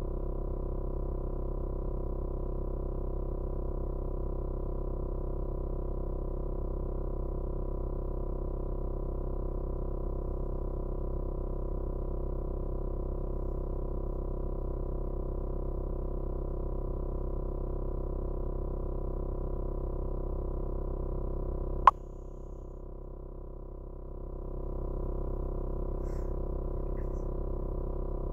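Steady low hum made of several held tones. About 22 seconds in there is one sharp click; the hum drops away for a couple of seconds after it, then returns.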